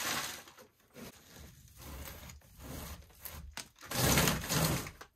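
Potting soil being scooped and brushed by hand into plastic seed trays: irregular rustling and scraping, loudest about four seconds in.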